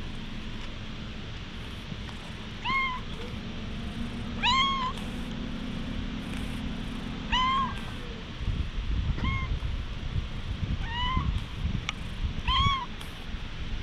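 A brown tabby stray cat meowing six times, short arched meows that rise and fall, as it is stroked and patted on the back.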